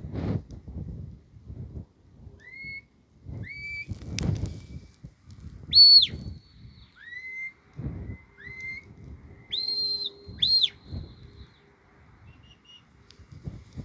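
A shepherd whistling commands to a working sheepdog: a run of short, rising whistle notes, some lower and some higher, with a loud held high note about six seconds in and two more around ten seconds. Wind buffets the microphone in gusts between the notes.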